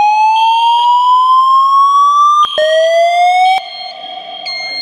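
Building fire alarm sounding its evacuation tone between voice messages: a loud whoop that climbs steadily in pitch for about four seconds, starts over from low, and cuts off a little past halfway, with a higher steady tone switching on and off alongside. Near the end a short, higher beep sounds.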